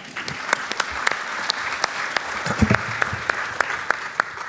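Audience applauding, many hands clapping, dying away near the end. A low thump at the microphone about halfway through.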